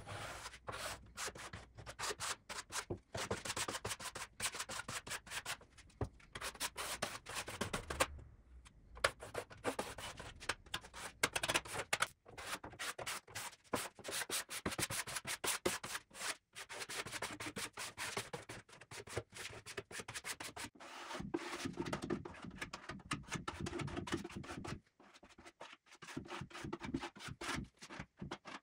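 Steel putty knife scraping across a wooden dresser top as it spreads and smooths white putty, in many short strokes one after another, with a brief pause about eight seconds in.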